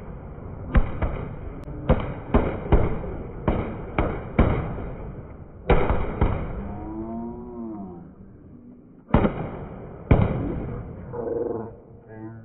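Firecrackers packed inside a burning Ravan effigy going off in sharp, irregularly spaced bangs, about a dozen in all. There is a quieter gap of about three seconds in the middle, where a brief wavering tone rises and falls.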